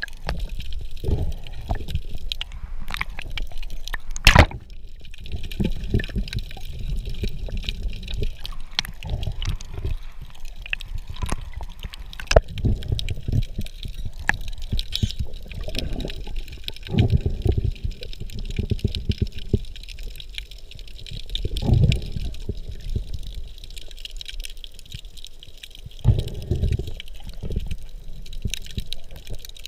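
Muffled underwater sound heard through an action camera's waterproof housing: a low rumble of water movement with several louder low swells, scattered small clicks, and one sharp knock about four seconds in.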